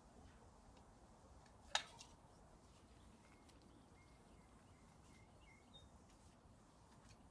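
Near silence: faint outdoor background hiss with one sharp click about two seconds in, and a few faint short high chirps in the middle.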